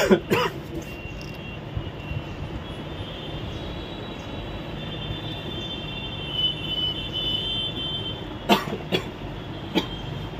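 A steady background hum, then a few sharp clicks near the end as a hand handles the opened printer's plastic parts.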